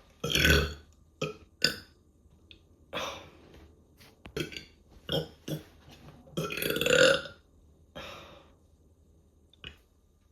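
A person belching on purpose, a string of about ten burps: mostly short and quick, with a loud one at the start and a longer one of about a second past the middle.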